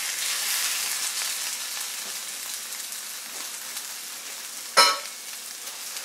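Floured chicken breast sizzling in hot olive oil in a stainless-steel skillet, the frying hiss easing off gradually. There is one sharp metallic clink of the tongs against the pan about five seconds in.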